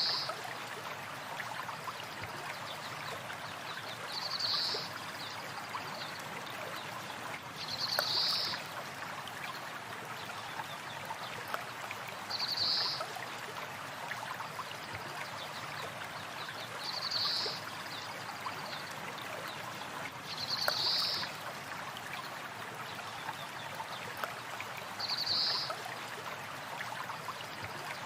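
Stream of water running steadily, with a small bird giving a short high call about every four seconds.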